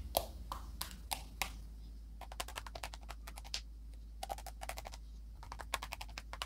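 Faint, irregular clicks in quick runs as a bunch of hypodermic needles is jabbed again and again into a stuffed sausage casing, pricking holes to relieve the pressure of trapped air.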